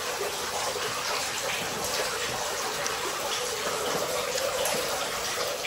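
Running water splashing steadily, with a few faint clicks.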